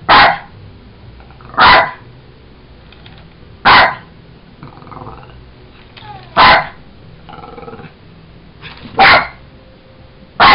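A Jack Russell terrier barking: five loud single barks spaced about two seconds apart, with faint sounds in the gaps.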